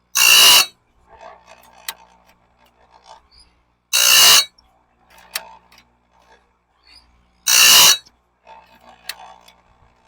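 Grinding wheel of an electric chainsaw-chain sharpener brought down on a bandsaw blade, tooth by tooth: three brief grinds evenly spaced about three and a half seconds apart. Between grinds there are faint rattles and a single sharp click as the blade is moved on to the next tooth.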